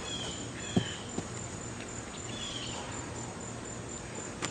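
Outdoor ambience of insects chirping in a steady, evenly pulsing high trill, with a few short chirps above it. A sharp knock comes just under a second in, then a softer one.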